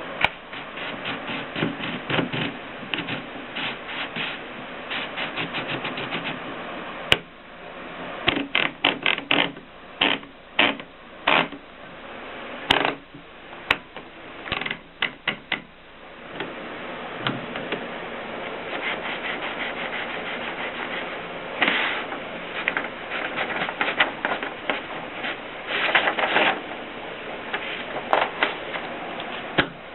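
AEG Mignon Model 4 index typewriter being operated: quick runs of mechanical clicks and clacks, broken by short pauses.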